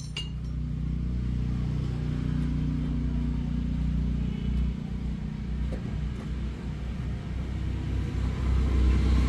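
An engine running with a steady low rumble, getting a little louder near the end.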